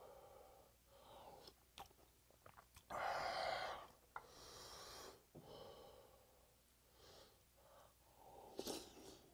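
A man eating pork-bone hangover soup from a wooden spoon: slurping sips of broth, a loud breathy exhale about three seconds in and a few more breaths after it, with wet mouth clicks and chewing.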